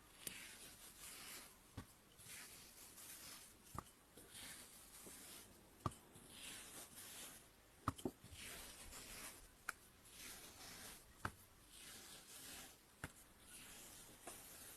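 Kinetic sand being worked: soft, faint scraping swishes that rise and fall over and over, with a light sharp click about every two seconds.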